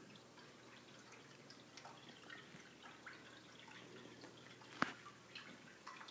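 Faint scattered ticks and clicks over quiet room tone, with one sharper click nearly five seconds in.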